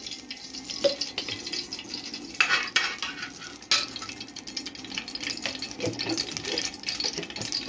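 Metal spoon scraping solid cooking fat out of a tin and knocking against an aluminium pot, while the fat sizzles as it melts in the hot pot. A steady sizzling hiss runs under scattered sharp clinks and scrapes, the strongest about two and a half and four seconds in.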